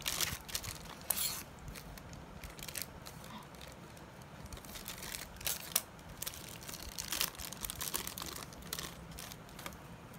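Thin plastic packaging crinkling and tearing as a small pair of pliers is unwrapped from its card-backed plastic pack, in irregular bursts of crackle, busiest about a second in and again in the second half.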